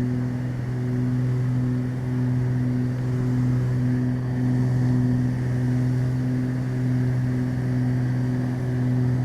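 Twin piston engines and propellers of a Beechcraft Baron running at climb power just after takeoff: a steady, even drone with a slow regular pulsing in its hum.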